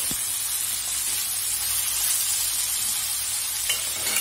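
Oil sizzling steadily in a wok as chopped tempe and melinjo skins stir-fry, with a couple of light clicks of the spatula against the wok near the end.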